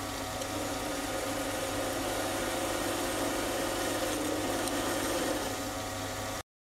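Sieg C3 mini lathe running steadily while a hand-ground high-speed-steel positive-rake tool takes a turning cut on a metal bar, a steady machine hum with faint whine tones and the rasp of the cut. The sound starts and stops abruptly.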